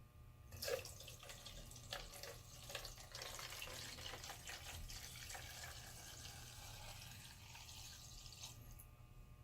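Evapo-Rust rust remover being poured into a can over a machinist jack, a faint, steady splashing pour that starts just under a second in and stops near the end.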